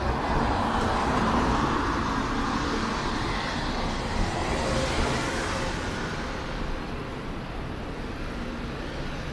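A car passing along a city street, its tyre and engine noise swelling over the first couple of seconds and then fading away, over a steady hum of street traffic.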